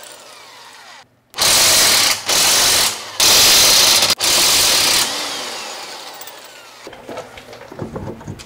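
Corded electric impact wrench hammering wheel lug nuts loose in four bursts of about a second each, then winding down with a falling whine. A few light knocks follow near the end.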